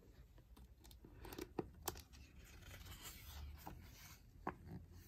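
A picture book's page being turned by hand: faint paper rustling and sliding, with a few light ticks and taps.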